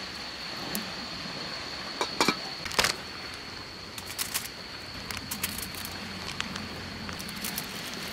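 Skewers being handled and laid onto aluminium foil on a camping table: light foil crinkles and small taps, with two sharper clicks between two and three seconds in. Under it runs a steady hiss with a constant high, thin tone.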